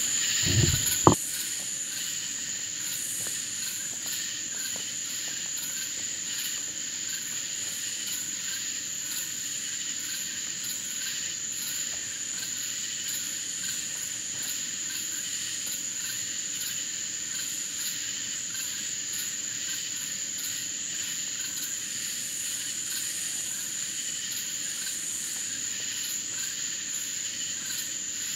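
Night insect chorus: crickets trilling steadily on one high pitch. About a second in, a short low thump cuts across it.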